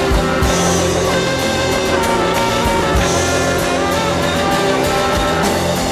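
Loud soundtrack music with drum hits and sustained instrument tones.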